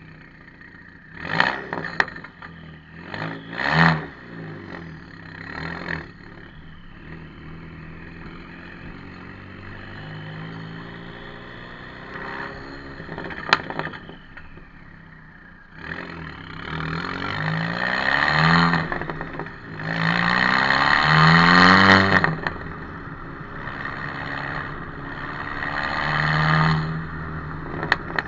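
Mk5 Golf GTI's 2.0 turbo four-cylinder through a non-resonated exhaust (3-inch downpipe, decat, middle box removed, standard back box). It blips twice at the start, runs steadier, then accelerates hard several times, each pull rising in pitch and level and the loudest about two-thirds of the way in.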